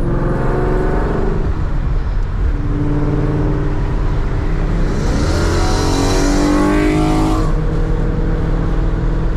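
Whipple-supercharged S550 Ford Mustang with a Corsa exhaust accelerating hard past in a flyby. There is a short pull at the start, then a longer rising pull through the revs that cuts off about two thirds of the way in.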